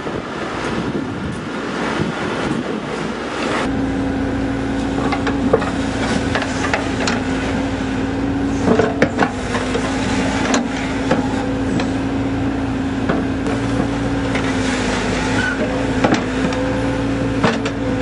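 Cat backhoe loader's diesel engine running under load while its bucket digs a trench. About 4 seconds in it settles into a steady droning hum, with a few sharp clanks of the bucket and digging scattered through.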